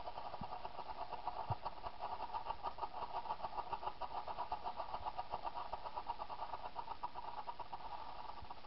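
Strobe firework burning inside a carved pumpkin, giving a rapid, even string of pops, several a second, in step with its flashes.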